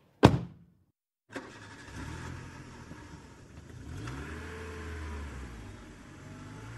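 A car door thumps shut, then about a second later a car engine starts and runs, revving up and back down midway as the car accelerates away.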